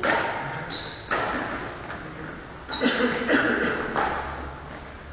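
Sharp smacks and knocks of badminton play echoing around a large sports hall, about six of them spread irregularly, each followed by a long echo, with a short high squeak less than a second in.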